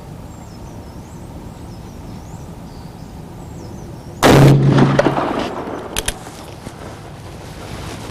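A single shot from a .454 Casull revolver firing a lead-free test load, with the report echoing off and fading over about a second. Two short sharp cracks follow about a second and a half later, and small birds chirp faintly before the shot.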